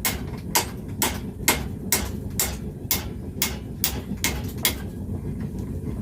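Hammer blows on a forged iron chain link, about two strikes a second, roughly eleven in all, stopping near the end, over a steady low rumble.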